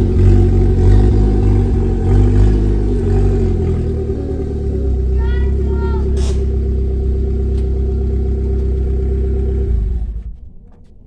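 Fiat Palio 1.0 four-cylinder engine running close, its speed wavering for the first few seconds and then holding steady. It cuts off abruptly about ten seconds in.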